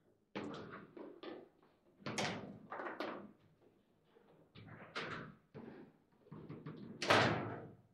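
Table football being played: the ball and the rod figures knock and clack against each other and the table, in a run of hard, echoing knocks. The loudest comes about seven seconds in.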